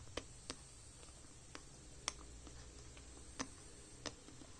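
Faint, irregular light clicks and taps, about six in all, as fingers handle a Xiaomi Poco X2 smartphone around its side power button and fingerprint sensor.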